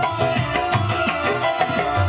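Live band music: Indonesian kendang hand drums beating a quick, even rhythm over electric keyboard and guitar.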